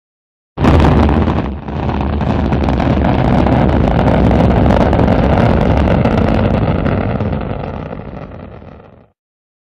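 Rocket engine sound effect: a sudden loud start, a short dip about a second later, then a steady rumble that gradually fades away near the end.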